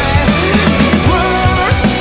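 Background pop-rock song with a steady drum beat and a bending melodic line, in an instrumental stretch between sung lines.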